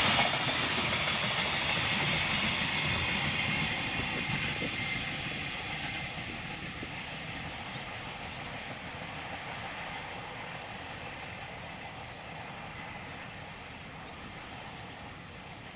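A freight train's wagons rolling past on the tracks, then fading steadily into the distance as the train moves away.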